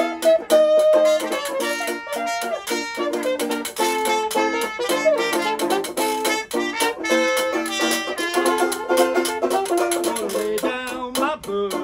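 A small acoustic trad-jazz band playing: a muted trumpet carries the melody over strummed banjo and a scraped metal washboard keeping a busy rhythm.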